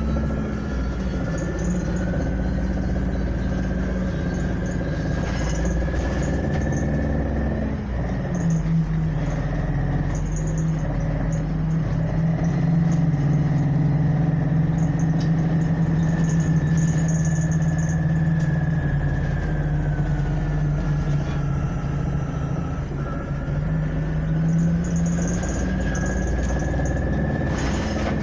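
City transit bus's engine and drivetrain heard from inside the passenger cabin while under way: a steady low hum with a whine that climbs as the bus picks up speed, drops back about two-thirds of the way in as it slows, then climbs again near the end.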